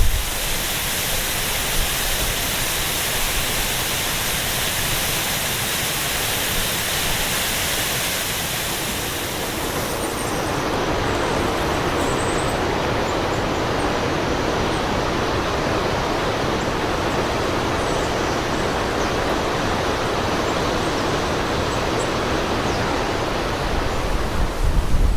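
Waterfall water falling and splashing, a dense, even rush. About ten seconds in, the high hiss drops away and the rush becomes lower and duller.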